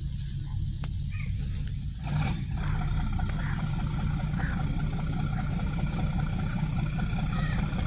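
Steady low rumble, joined about two seconds in by the steady drone and faint whine of a passenger fast ferry's engines as it moves slowly through the harbour.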